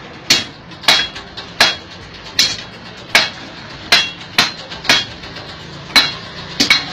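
Hand hammer forging the red-hot end of a steel rod on a holed steel block used as an anvil: about eleven sharp metal-on-metal strikes at an uneven pace, each with a brief ring.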